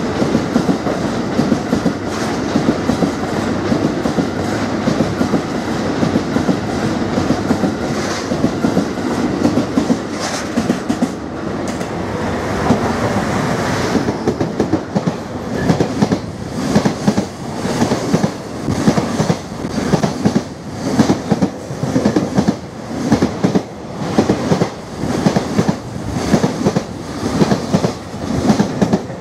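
Freight trains passing close at speed. First a long rake of fly-ash hopper wagons rolls by with a steady rumble. About halfway, an electric locomotive and container wagons go past, their wheels clacking over the rail joints in a steady beat of a little over one clack a second.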